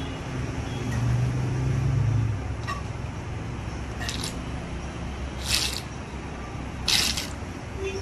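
Red plastic engine-oil bottle being squeezed as oil is fed into a rebuilt scooter engine: a run of short hissing squirts about every second and a half, getting louder, after a low hum in the first couple of seconds.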